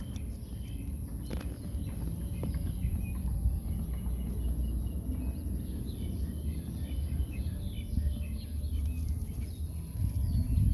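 Outdoor ambience: a steady low rumble, like wind on the microphone, under a thin high whine, with faint scattered chirps.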